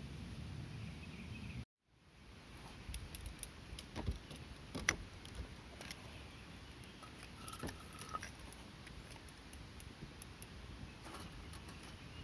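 Wood burning in a campfire fire pit, crackling with scattered sharp pops. A brief dropout about two seconds in, where the footage cuts.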